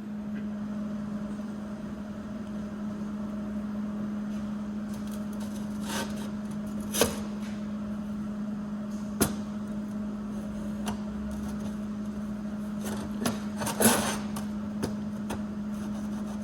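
A steady machine hum with a handful of sharp knocks, the loudest about 14 seconds in.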